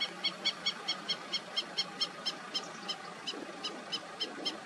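A bird calling a fast series of short, high notes, about four to five a second, over a faint steady background hiss.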